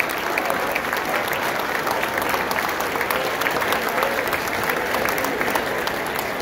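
Audience applauding: dense, steady clapping with a few voices calling out over it.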